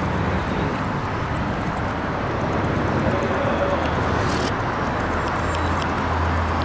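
Steady outdoor city ambience: a low traffic rumble and general urban noise, with a few faint clicks.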